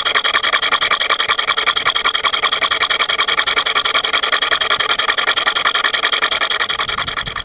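Metal lathe taking a facing cut across the end of a bronze bar: a steady, high-pitched cutting sound with a fast even pulse, easing off near the end.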